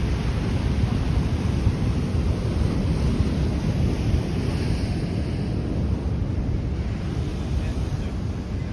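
Ocean waves surging and washing over a rocky shoreline, with wind buffeting the microphone; a brief louder hiss of rushing water comes about halfway through.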